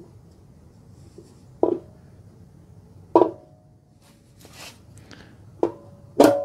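Cast-aluminium cylinder head of a GM Ecotec engine clinking against the block as it is handled into place: four sharp metallic knocks with a short ring, the loudest near the end, and a faint scrape in between.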